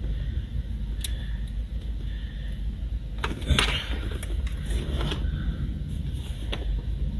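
Plastic trim clips in a car's interior being pried at with a flat-blade screwdriver: scattered clicks and scrapes, the loudest a rattling scrape about three and a half seconds in, over a steady low hum.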